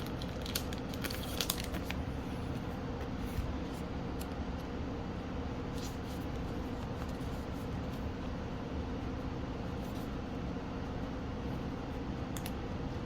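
Trading cards being handled and set down, a few light clicks and rustles in the first couple of seconds and again near the end, over a steady low room hum.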